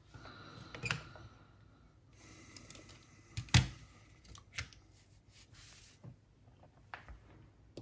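Clicks and knocks of a disassembled cassette walkman's parts being handled and set down: the plastic case and the metal cassette mechanism. The loudest knock comes about three and a half seconds in, with a few smaller clicks around it.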